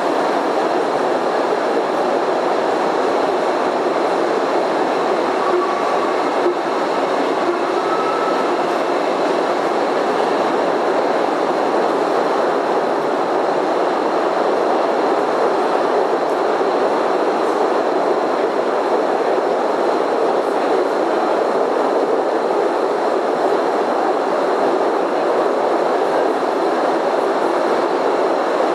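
Postojna Cave's small tourist train running steadily along its narrow-gauge track, a continuous rumble of wheels on rail, with a couple of faint brief squeals about six to eight seconds in.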